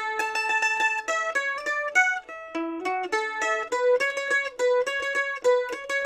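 An Ibanez M700AVS mandolin, solid spruce top with solid maple back and sides, played as a fast picked single-note melody. One note is tremolo-picked for about a second at the start.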